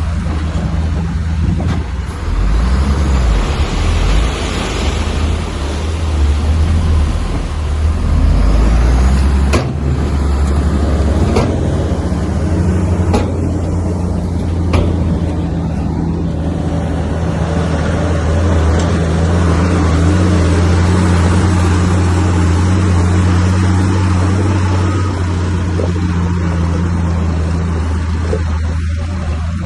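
Heavy diesel engine of earthmoving machinery running steadily under load, with a few sharp knocks through the middle.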